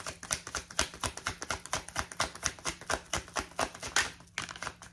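A deck of tarot cards being shuffled by hand: a rapid, uneven run of light slapping clicks, about eight a second, that thins out near the end.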